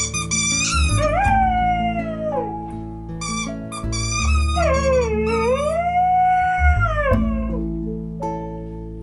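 Border collie howling in two long, wavering howls over background music. The first starts about a second in, rising and then falling. The second dips, rises and holds before falling away.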